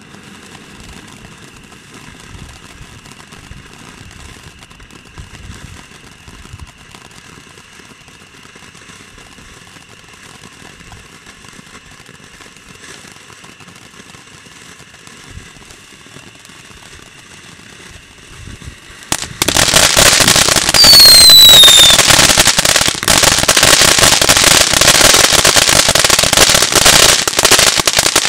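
Color Quest ground fountain firework burning: a faint hiss of sparks for about nineteen seconds, then it suddenly breaks into loud, dense crackling. Just after the change comes a short whistle falling in pitch.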